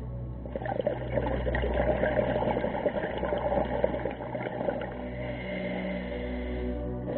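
Scuba regulator exhaust bubbles rushing and crackling past the underwater camera for about four seconds, over a steady low hum.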